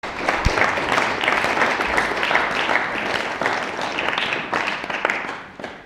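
Small audience applauding, the clapping dying away near the end.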